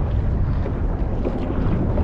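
Wind buffeting the microphone with a steady low rumble, over the wash of water and the splashes of kayak paddle strokes.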